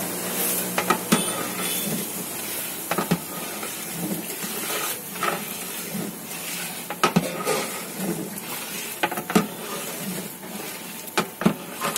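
Oily spice gravy sizzling in a large metal cooking pot while a long iron ladle stirs it. The ladle scrapes and knocks against the pot in a series of sharp clicks.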